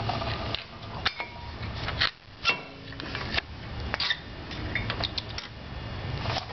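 Scattered clicks and light metallic knocks from hand tools working a brake caliper while its piston is pushed back in, over a low steady hum.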